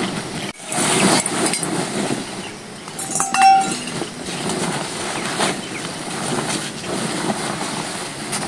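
Large plastic tarpaulin rustling and crinkling as it is lifted, shaken and gathered up. A short high-pitched call cuts in about three seconds in.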